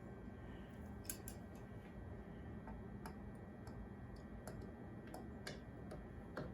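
Faint, scattered metal clicks and ticks from an E-clip being worked onto a snowblower wheel axle with channel-lock pliers.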